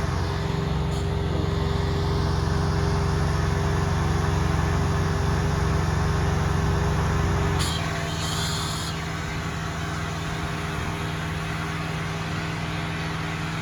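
Pressure washer engine running steadily. About eight seconds in, its note changes and it quietens, with a short hiss just after.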